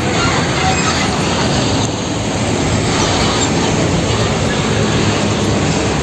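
Heavy UD Quester fuel tanker truck driving past close by: its diesel engine and tyre noise make a steady, loud rumble.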